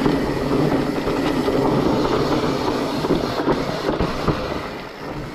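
Mountain bike rolling fast down a loose dirt singletrack: steady tyre rumble over the dusty surface, with the bike rattling and clicking over bumps.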